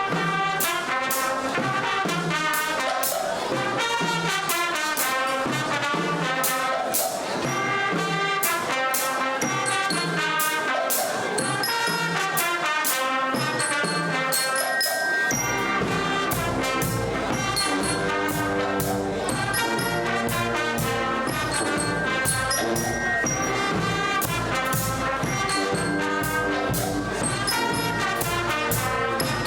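Guggenmusik brass band playing: trumpets and trombones in loud massed chords over steady drum and cymbal beats. About halfway through a deep bass comes in underneath.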